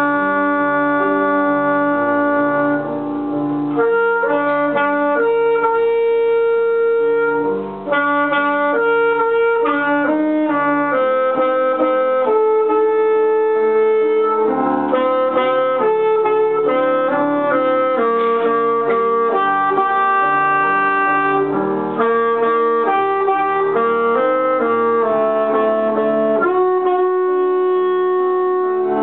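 Alto saxophone playing a slow melody of held notes over grand piano accompaniment, with short gaps between phrases a few times.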